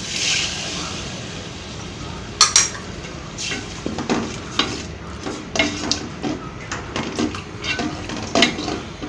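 Water poured into a hot pot of fried spice paste, with a short hiss as it goes in; then a nylon spatula stirring the thin curry and knocking and scraping against the metal pot in irregular clicks, two of them sharper and louder.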